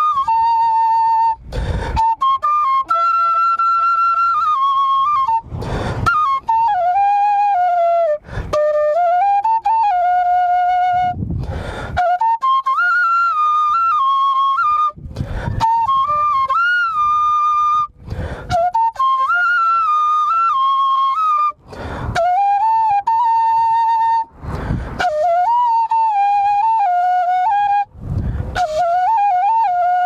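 Solo bansuri (Nepali bamboo transverse flute) playing a slow folk melody, one line of held notes with bends and grace-note ornaments. The melody is broken every few seconds by short, breathy rushes of noise as the player breathes between phrases.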